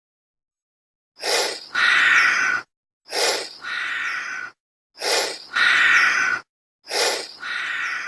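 Chameleon breathing sound effect: four identical breaths about two seconds apart, each a short sharp intake followed by a longer hiss, with dead silence between them.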